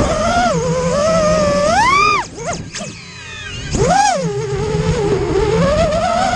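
FPV quadcopter motors whining, the pitch rising and falling with the throttle. The pitch climbs steeply about two seconds in, the throttle is then chopped so the whine drops away briefly, and it comes back with a burst of throttle about four seconds in.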